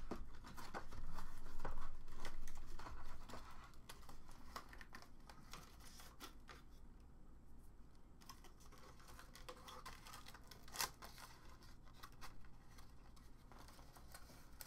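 Cardboard and plastic packaging being handled while a webcam is worked out of its box insert: scattered clicks, scrapes and rustles, busiest in the first three seconds, with one sharper click about eleven seconds in.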